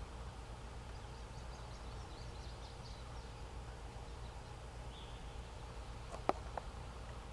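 Quiet outdoor ambience: a steady low background rumble with faint, high, short bird chirps through the first few seconds. Two sharp clicks come close together about six seconds in, the first the loudest sound.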